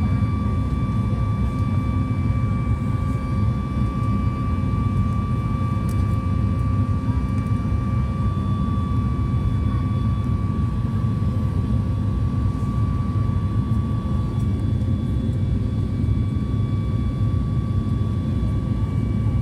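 Steady cabin noise of a Boeing 737 MAX 8 in flight: a deep, even rumble and rush from its CFM LEAP-1B engines and the airflow, with a constant high whine on top.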